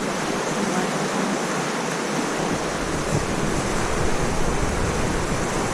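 Steady rushing of river water, an even hiss, with a low rumble coming in about halfway through.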